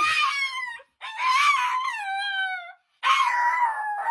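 Small dog howling: three long, high-pitched howls in a row, each sliding down in pitch as it ends.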